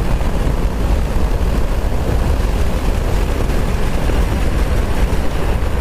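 Triumph Tiger Sport motorcycle cruising at highway speed: a steady rush of wind and road noise, with wind buffeting the helmet-mounted microphone.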